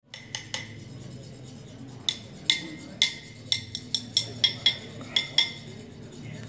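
Brass chak-pur funnels for sand-mandala work tapped together about a dozen times at an uneven pace. Each tap is a short metallic clink that rings briefly. A low hum of a large hall lies underneath.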